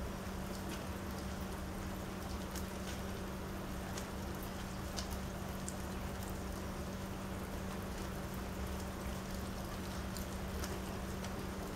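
Rain falling on a wet wooden deck and its puddles: a steady patter with scattered sharp drop ticks, over a steady low hum.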